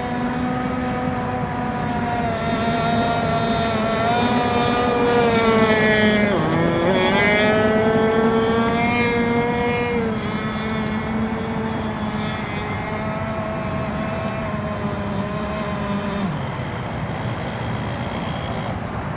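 Radio-controlled racing boat's motor running at high speed across the water, a steady buzzing note whose pitch dips briefly about six seconds in and then climbs back.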